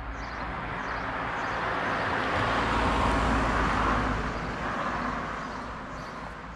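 A car passing by, its tyre and engine noise swelling to a peak about three seconds in and then fading away.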